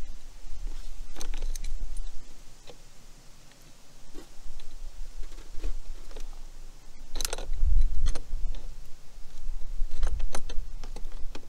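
Metal clinks and clicks from an adjustable wrench and tools working on a battery terminal bolt, irregular, with a loud clank about seven seconds in, over a low rumble.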